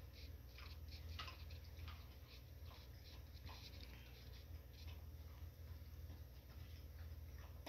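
Faint soft scratching of a small paintbrush dabbing and scrubbing on watercolor paper, short irregular strokes several times a second, over a low steady hum.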